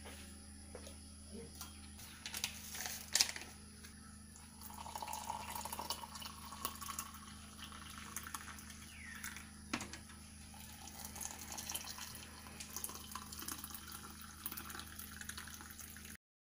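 Hot water poured from an electric kettle into ceramic mugs, a steady splashing stream as they fill. A few sharp knocks come about two to three seconds in, the loudest a little after three seconds, before the pour begins.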